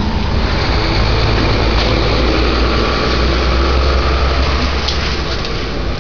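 An engine idling: a steady, deep, unbroken rumble.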